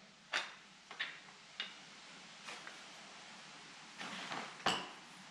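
A few light clicks and knocks as a winch's steel roller fairlead is handled, then a louder clunk near the end as it is set down on a board on the floor.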